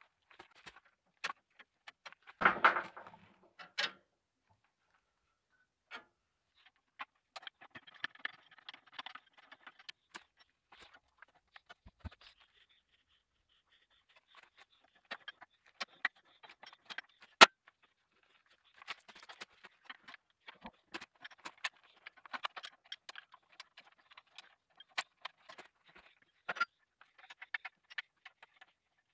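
Hand tools clicking and scraping on a tractor's diesel injection pump: a screwdriver scratching a timing mark on the pump body and a spanner on the fuel-line union nuts. The metal clinks are scattered, with a louder clatter about two and a half seconds in.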